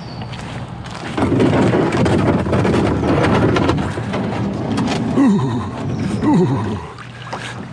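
Rumble of thunder, starting about a second in and rolling for about six seconds before fading, with two short falling tones near the end.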